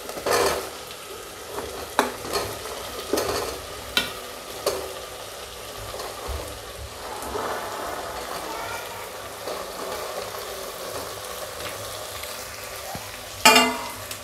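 Chopped vegetables scraped off a steel plate with a metal spatula and dropped into sizzling oil and tomato masala in a pressure cooker, the spatula knocking against plate and pot about once a second early on. The frying hiss carries on steadily after that, with a louder clatter of the spatula near the end.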